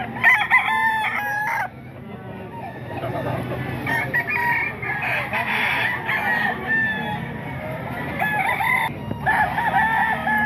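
Several gamefowl roosters crowing over one another, call after call, loudest in the first second or so.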